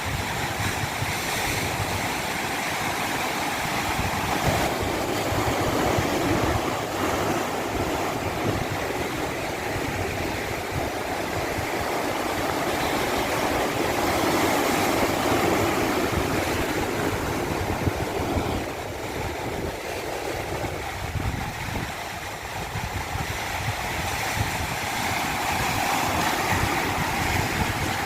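Stream water rushing over a small cascade, a steady noise that swells and eases slowly in level.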